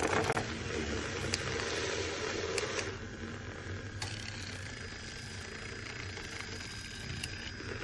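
Shilily USB-rechargeable handheld milk frother running, its small motor spinning the wire whisk in milk in a glass jar. A steady whirring hum, louder for the first three seconds or so, then a little quieter and even.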